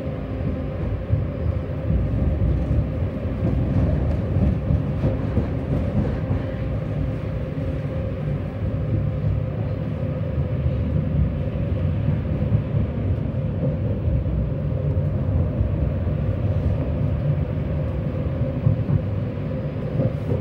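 Tram running along the track, heard from on board: a steady rumble with a constant low hum over it.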